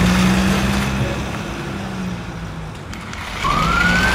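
A remote-control toy car's motor humming steadily as the car drives off, fading away. About three and a half seconds in, a toy fire engine's electronic siren starts wailing, rising quickly and then holding a high tone.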